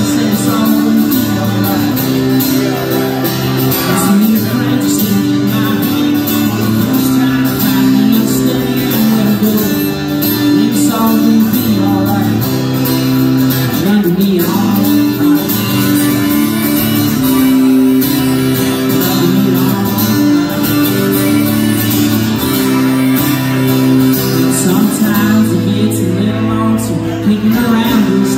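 Acoustic guitar played live and amplified, chords ringing steadily through a song, with a man's voice singing in places.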